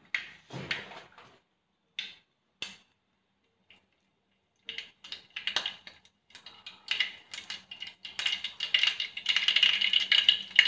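Mustard seeds popping and spluttering in hot coconut oil in an aluminium pot. At first there are a few scattered pops after a brief handling noise. From about five seconds in they come thicker, building to a loud, dense crackle near the end as the seeds burst.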